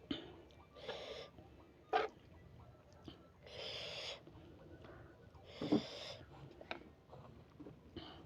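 A person breathing out hard in hissing puffs, about four in a row, while eating very spicy noodles, with a few sharp mouth smacks between them.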